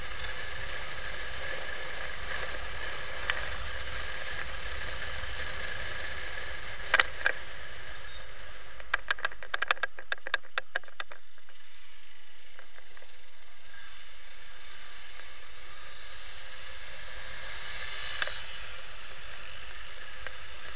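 Steady road and wind noise from a motorcycle being ridden along a street, picked up by a camera mounted on the bike. A couple of sharp clicks come about a third of the way in, then a quick run of clicks or rattles around halfway, as the low rumble drops away.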